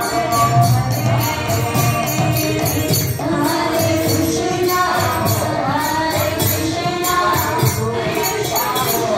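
Devotional kirtan: several voices sing a melodic chant over jingling metal hand percussion that keeps a steady beat.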